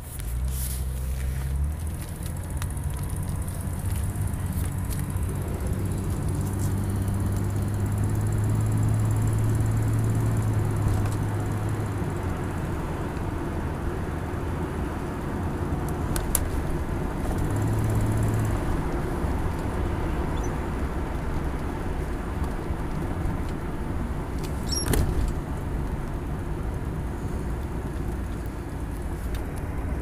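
1981 BMW 635 CSi straight-six running, heard from the driver's seat, with its revs raised off idle for a while. Under it is the clicking of a leaking exhaust manifold gasket, a sound that can pass for tappets or injectors.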